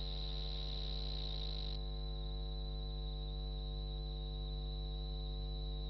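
Steady electrical mains hum, a low buzz with a thin high whine over it, with no race sound heard. A burst of hiss sits on top of it for the first couple of seconds.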